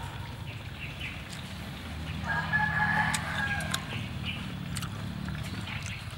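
A rooster crowing once, about two seconds in: a single held call lasting about a second and a half.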